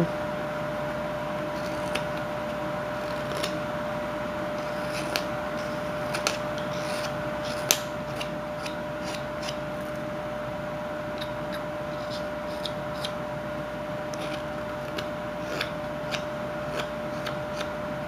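Whittling knife slicing chips off a small carved wooden bird: short, crisp cuts and scrapes at irregular intervals, the sharpest a little before halfway, over a steady faint hum.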